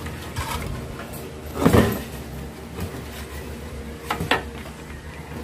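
Clunks and scrapes of a plastic cooling fan and the welding machine's metal back panel being handled and fitted into place. The loudest knock comes a little under two seconds in, with a couple of sharper clacks around four seconds in.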